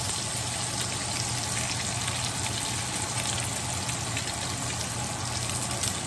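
Bacon sizzling in a screaming-hot cast-iron skillet: a steady frying hiss with small scattered pops.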